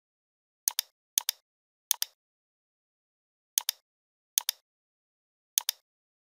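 Computer mouse button clicked six times at uneven intervals, each click a quick pair of sharp ticks as the button is pressed and released, with dead silence in between.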